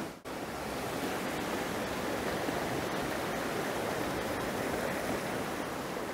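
Steady rush of a waterfall and the rocky mountain stream below it.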